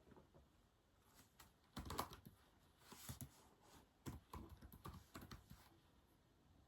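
Typing on a keyboard: irregular runs of soft key clicks starting about a second in, loudest around two seconds, with a pause before the end.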